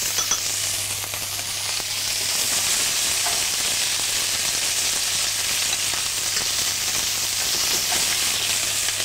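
Red mullet heads and bones frying in hot olive oil and butter in a pan, a steady sizzle. They are being seared hard to brown them for a stock.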